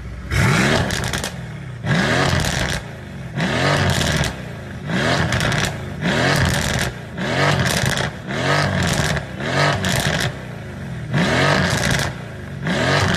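Mercedes-AMG C63 S twin-turbo V8 exhaust, with cat-less performance downpipes, revved in about ten quick throttle blips roughly one every second and a half. Each blip rises and falls in pitch, and the engine drops back to idle in between.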